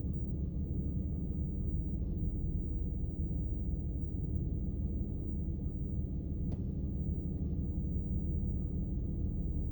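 Car engine idling: a steady low hum with one faint click about six and a half seconds in.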